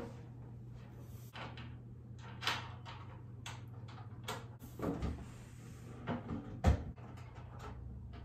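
A mailbox being fitted onto its metal post by hand: scattered clicks, taps and clunks of the parts and fittings, with a heavier thump about two-thirds of the way through.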